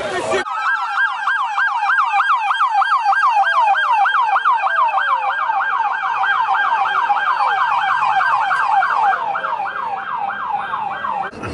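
Police car siren on its fast yelp setting, a loud rising-and-falling wail about four times a second. It starts suddenly and cuts off near the end.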